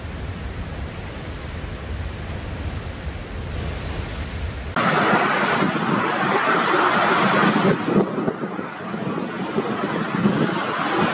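Heavy ground-swell surf. At first it is wind rumbling on the microphone over the sea. About five seconds in it cuts abruptly to louder, rougher noise of big waves breaking and pouring off a rocky lava coast.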